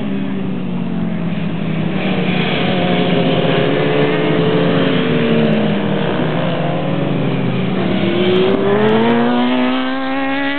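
Several pit bike engines running hard around a race track, their pitch falling and rising as the riders brake and accelerate; near the end one engine winds up in a long rising note as its bike accelerates.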